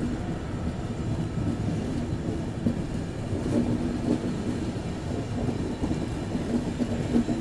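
Passenger train coaches running on the track, heard from the open doorway of a moving coach: a steady low rumble of wheels on rails with irregular knocks and a faint on-off hum.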